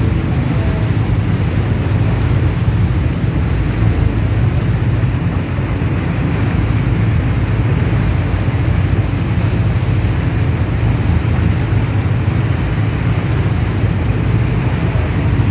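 Boat engine running steadily under the rush of the churning propeller wake behind the stern.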